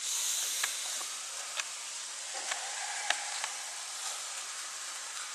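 Steady high-pitched hiss with scattered faint clicks; no thunder is heard.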